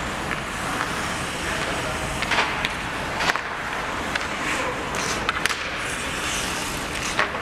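Ice hockey in play: skate blades scraping and gliding on the ice, with a handful of sharp clacks of sticks striking the puck and the ice, several in the middle and one near the end.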